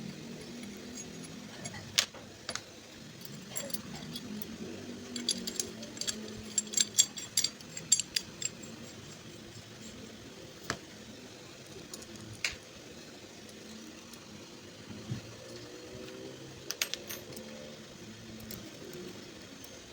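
Small metal parts and tools clinking and tapping as they are handled on a workbench, with a quick run of clinks a few seconds in, over a steady low hum.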